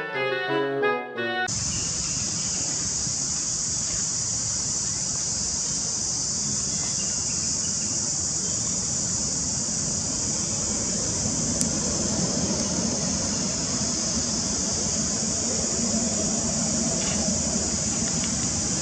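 A brief end of upbeat intro music, then a steady, unbroken high-pitched insect chorus over a low outdoor rumble.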